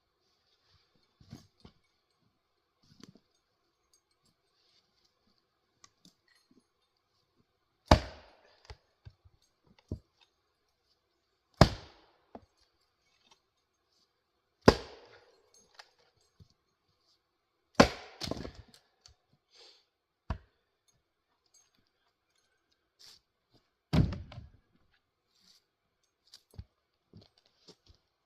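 A 3.5-pound Velvicut Jersey axe chopping into firewood: five heavy strikes a few seconds apart, each followed by a short crackle, with a few lighter knocks in between.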